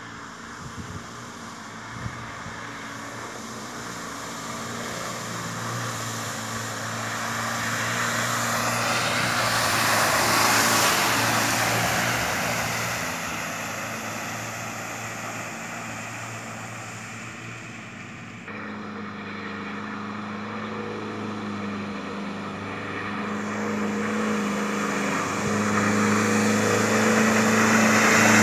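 A 4x4 SUV's engine running steadily as it drives through shallow water, with the hiss of water splashing and spraying from its wheels. The sound swells around the middle, drops at a sudden shift about two-thirds of the way in, then grows louder again toward the end as the vehicle comes closer.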